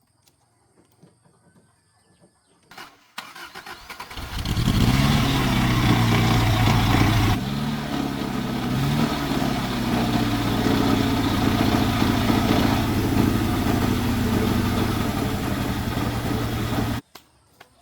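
Old Jeep's engine started after its no-start repair. After a click, the starter cranks briefly and the engine catches, revs up and down a few times, then runs steadily. It cuts off suddenly near the end.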